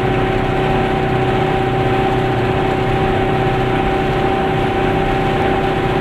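Car engine and tyre noise at a steady cruising speed, heard from inside the car, with an even engine hum that holds one pitch.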